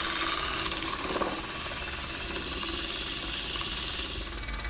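Sandpaper hissing steadily against the inside of a dry mesquite box spinning on a midi wood lathe during hand sanding, growing a little brighter about two seconds in.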